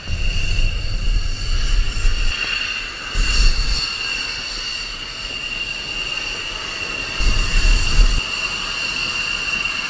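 Jet engines of a large four-engine military transport aircraft at takeoff power. A steady high-pitched whine sits over a deep rumble that swells near the start, about three seconds in and again around seven to eight seconds in.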